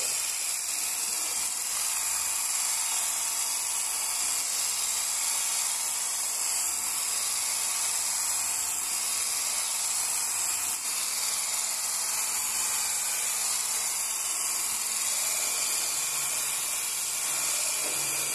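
Electric stick blender with a whisk attachment running steadily, whisking egg yolks and condensed milk in a stainless steel bowl.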